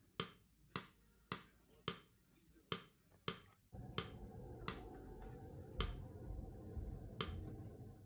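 Sharp snapping clicks about twice a second, the closing beat of the background music. About four seconds in, a steady low hiss joins them, and both cut off suddenly at the end.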